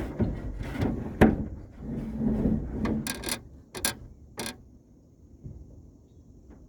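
Rubbing and knocking handling noises, then several sharp clicks a little after three seconds in, before it goes quiet.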